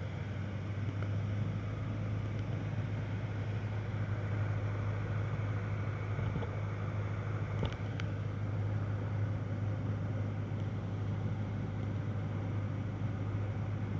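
Piper Warrior's four-cylinder engine and propeller droning steadily, heard inside the cabin, at reduced approach power with full flaps on final. Two short clicks sound about eight seconds in.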